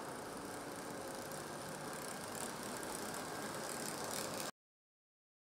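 Steady mechanical running noise with a faint hum, like an engine or machinery running, which cuts off abruptly about four and a half seconds in.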